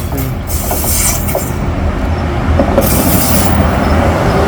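Diesel train pulling into a station, its rumble growing louder as it approaches, with two short bursts of high wheel squeal.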